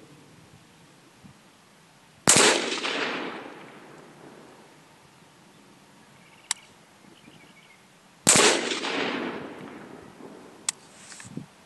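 Two rifle shots fired at a ceramic armor plate about six seconds apart, each followed by a long echoing tail. A few short sharp clicks fall between and after them.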